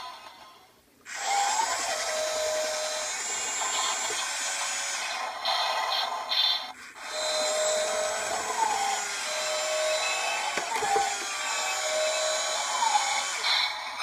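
Remote-control toy forklift's small electric motor and gears whirring in two runs, about four seconds and then about six seconds, with a short break and a few clicks between, as the forks are raised and lowered.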